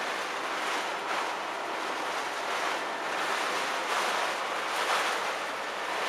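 Wind-driven heavy rain on a semi truck's cab and windshield, heard from inside the cab, with storm gusts making the noise swell and ease every second or so.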